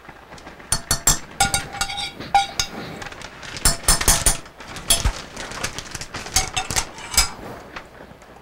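A metal spoon scraping and knocking against a frying pan as cooked sausage and onion are spooned out into a mixing bowl: irregular clinks and knocks, a few with a short metallic ring.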